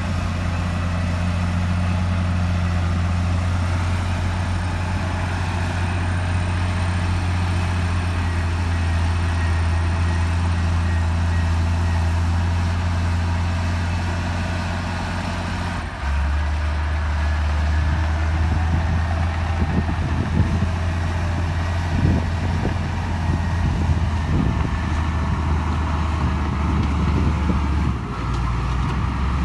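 Bulldozer's diesel engine running steadily with a deep drone. About halfway in the engine note drops, and a series of knocks and clanks follows.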